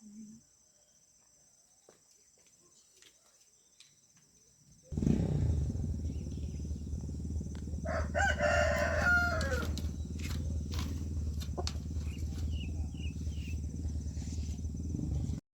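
A rooster crowing once, a long call that falls away at its end. It sounds over a loud low rumbling noise that starts suddenly a few seconds earlier and cuts off abruptly just before the end.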